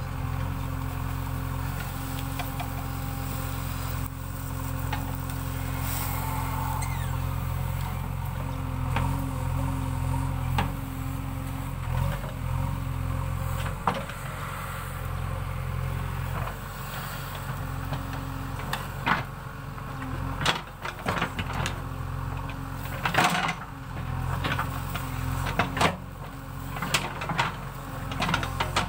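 A JCB backhoe loader's diesel engine running steadily. Its note changes a little past halfway, and a string of sharp knocks and clanks follows in the last third.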